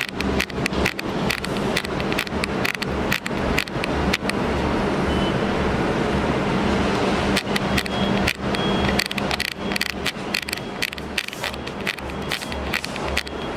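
Wind buffeting the microphone, with frequent crackling knocks over a steady low hum.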